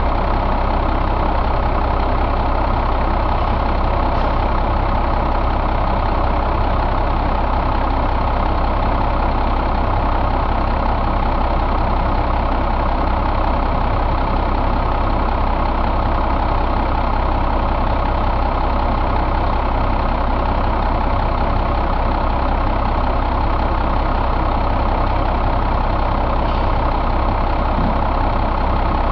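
1996 Cummins M11 inline-six diesel engine idling steadily.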